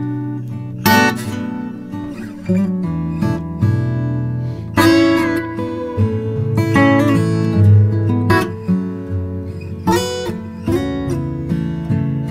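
Acoustic guitar music: picked notes, with three strummed chords about four to five seconds apart.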